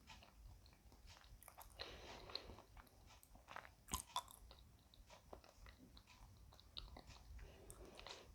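Faint, close chewing of a soft banana: small wet mouth clicks and soft smacking, with two sharper clicks about four seconds in.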